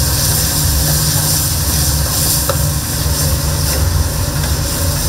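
Spicy short-arm octopus (jjukkumi) stir-frying in a large pan, a steady sizzle over a low, constant rumble, with a few faint clicks of the utensils.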